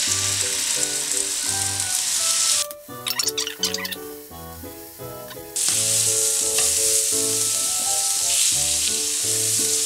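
Marinated cod fillet pieces sizzling as they fry in hot oil in a non-stick frying pan. The sizzle drops away about three seconds in and comes back louder a couple of seconds later, with background music underneath.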